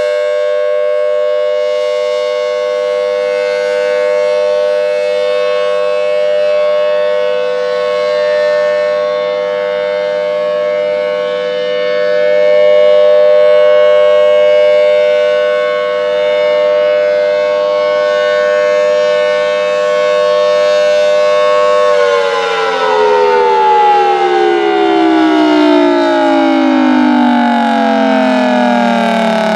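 Federal Signal Thunderbolt 1000T tornado siren sounding a steady two-tone chord on a test. About three-quarters of the way through, the pitch starts falling steadily as the siren winds down.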